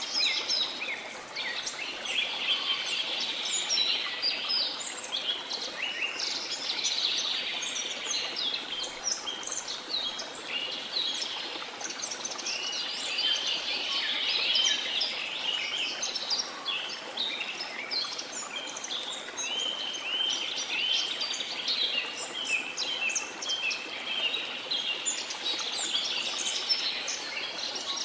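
Many birds chirping and singing at once in a dense, continuous chorus, over a steady rush of falling water.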